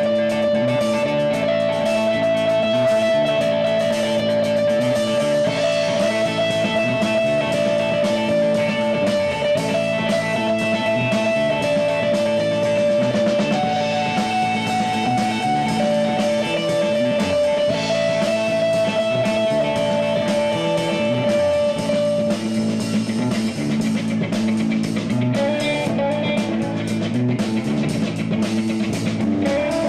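Rock trio of electric guitar, bass guitar and drum kit playing live, an instrumental passage without vocals. Long held notes alternate back and forth between two pitches over a steady beat.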